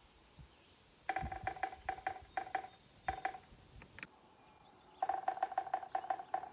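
Woodpecker pecking rapidly on a hard surface that rings with a clear tone at each strike. One run of taps comes about a second in and lasts some two seconds, and a second, faster run starts about five seconds in.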